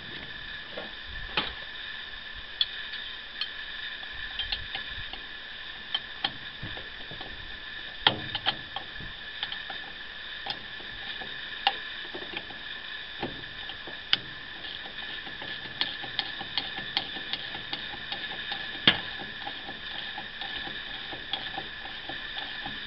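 Irregular metallic clicks and clinks of a wrench on the steel flange bolts and nuts as a circulator pump's bottom flange is tightened down. A steady high-pitched hum runs underneath.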